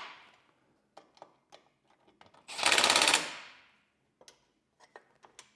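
Cordless impact driver running a screw home in a short burst of rapid hammering, about two and a half seconds in, lasting under a second. Scattered light clicks and taps of the tool and parts being handled around it.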